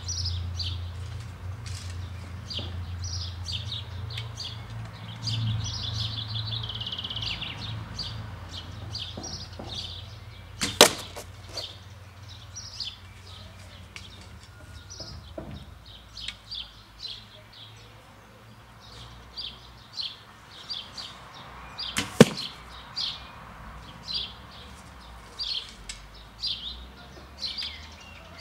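Two sharp cracks of carbon arrows shot from a bow hitting small card targets on the lawn, one about eleven seconds in and another about twenty-two seconds in. Songbirds chirp throughout.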